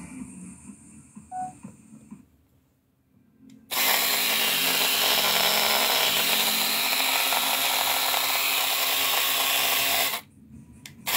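Cordless electric foil shaver switched on about four seconds in, running steadily for about six seconds, then switched off and on again just before the end. Before it starts there are only a few faint handling knocks.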